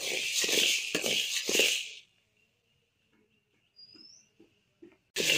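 A perforated metal ladle stirs and scrapes dry green gram (mung beans) around a metal pan as they dry-roast. It makes a scratchy rattle of about two to three strokes a second that stops about two seconds in, leaving only a few faint clicks.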